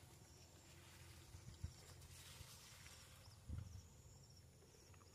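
Near silence: faint handling of tent fabric, with two soft low thumps about one and a half and three and a half seconds in, under a faint high chirping that repeats about once a second.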